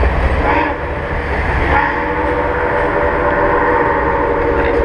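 Passenger cars of a steam excursion train rolling across a trestle bridge: a loud, steady rumble with several held tones running through it. The deepest part of the rumble eases about two seconds in.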